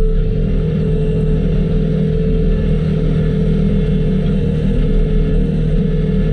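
Skid steer engine running steadily, a constant drone with no change in pitch.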